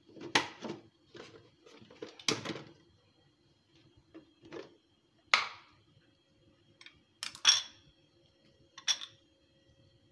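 Kitchen clatter: a blender jar being handled and a spoon knocking and scraping against the jar and a glass bowl, with about five sharp knocks and clinks spread out, some ringing briefly.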